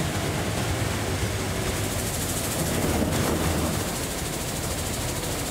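Sand-washing plant running: a steady rush of water with a low machinery hum underneath.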